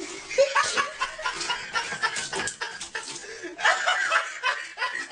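Human laughter in short, irregular bursts.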